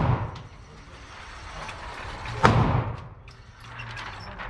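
Pistol shots with a long echoing tail, as on an indoor range: one loud shot about halfway through, the echo of a shot just before fading at the start, and the next shot right at the end, with faint clicks between.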